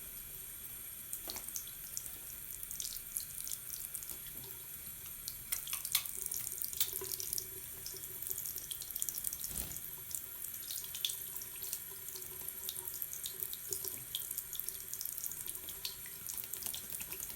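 Water running steadily, with many small splashes and drips through it.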